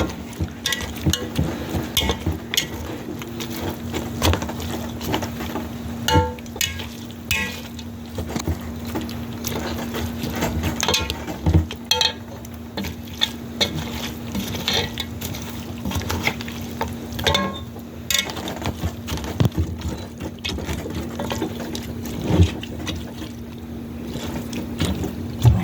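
A utensil mashing bones in a pot, softened by days of cooking, to crush them for the grinder: irregular knocks and clinks against the pot with wet stirring and squelching, over a steady low hum.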